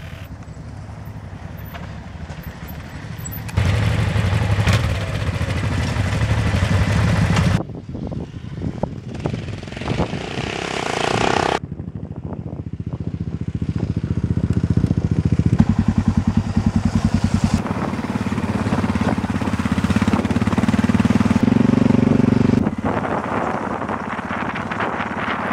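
Motorcycle engines running on gravel tracks, heard in a string of short clips that change abruptly every few seconds; one segment swells as a bike comes closer and cuts off suddenly.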